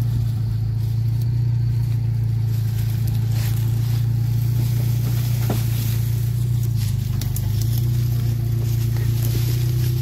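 Opel Frontera 4x4's engine running steadily at low revs while driving, with a few light knocks over the track.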